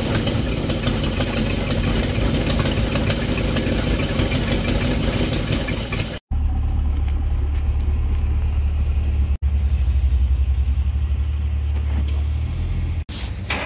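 A 1973 Ford 351 Cleveland V8 idles fast with an even, rapid beat while its carburetor idle mixture is being adjusted to bring the idle down about 400 rpm. After a sudden cut about six seconds in, a second V8 idles with a much deeper, bassier rumble, which points to a Chevrolet SS sedan.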